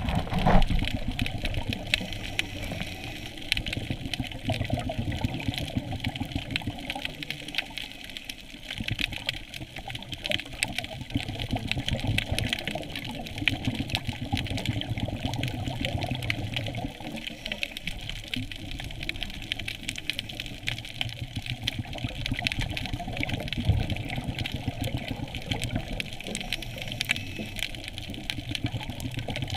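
Underwater ambience picked up by a submerged camera: a steady muffled water rush with a dense crackle of fine clicks and a shifting low rumble.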